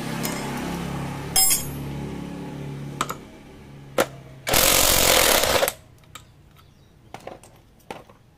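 Impact wrench hammering for about a second on the magneto flywheel rotor nut, loosening it. Before it comes a steady low hum with a few short sharp knocks, and light metal clicks follow.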